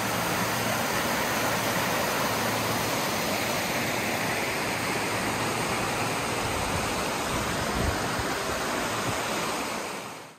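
Flat Laurel Creek's water rushing steadily, fading out near the end.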